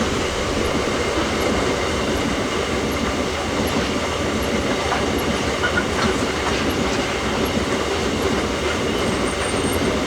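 Iron ore freight train rolling past, a steady rumble of wagon wheels on the rails with clickety-clack over rail joints and a few faint wheel squeaks.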